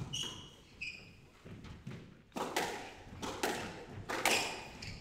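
Squash rally: the ball cracking off rackets and the court walls in a string of sharp knocks about once a second, with short squeaks of court shoes on the wooden floor in the first second.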